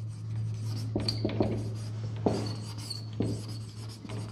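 Marker pen writing on a whiteboard: short strokes and squeaks of the nib as the words are written, over a steady low hum.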